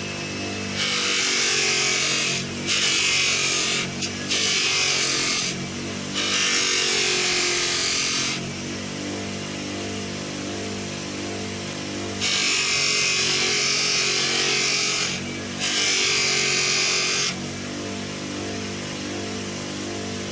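Power tool polishing surface rust off a metal motorcycle part, in six bursts of hissing noise, each one to three seconds long, over a steady low hum.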